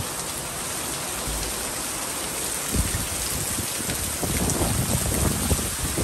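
Heavy rain pouring down in a sudden storm, a steady hiss of water. A low rumble comes and goes through the second half.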